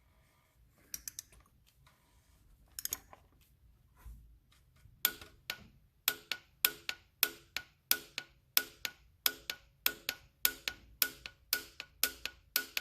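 Ratchet of a torque wrench clicking as it turns the oil filter housing cap down, a few scattered clicks first and then a steady run of about three clicks a second from about five seconds in.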